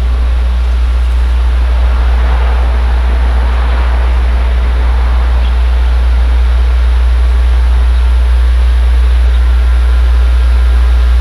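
Steady, loud low rumble with an even hiss above it, from a vehicle in motion.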